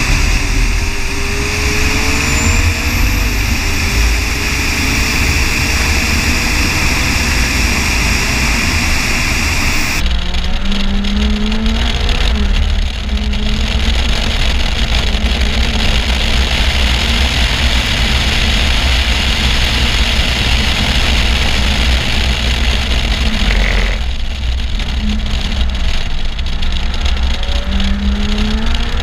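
McLaren 570S's 3.8-litre twin-turbo V8 driven hard on track, its pitch climbing and then dropping as it shifts up through the gears. The sound changes abruptly about ten seconds in, from a pickup over the engine cover to one low beside a rear wheel, where tyre and road noise mix with the engine.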